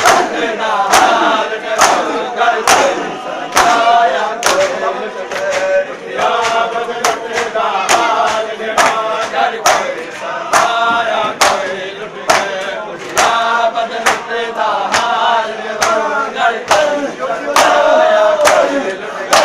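Men doing hand matam, beating their bare chests in unison, a sharp slap about once a second, over loud group chanting of a mourning lament by male voices.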